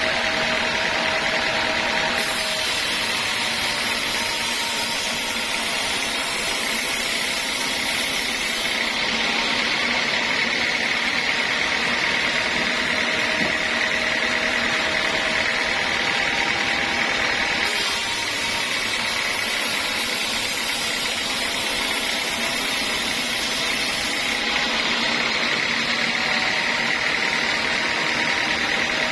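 Sawmill machinery running steadily, with a high hiss that comes in twice for several seconds at a time.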